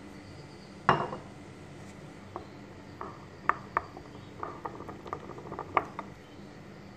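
Wooden spoon stirring thick hummus in a ceramic bowl and knocking against its sides: one loud knock about a second in, then a run of lighter, irregular clicks.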